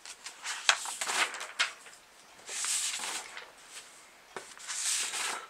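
Large paper sheets being handled and turned: several light taps and crackles in the first second or two, then two longer sliding rustles.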